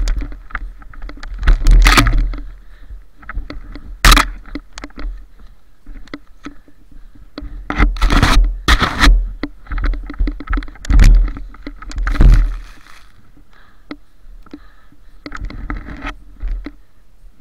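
Airsoft M870 pump-action shotgun being fired and cycled: a string of sharp cracks and clacks a second or more apart, several of them close together in pairs, over a low rumble of handling noise and crunching snow.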